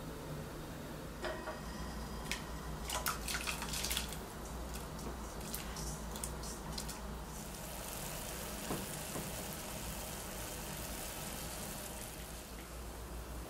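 Water dripping amid light clicks and clinks of kitchen utensils, then a steady stream of running water for several seconds in the second half.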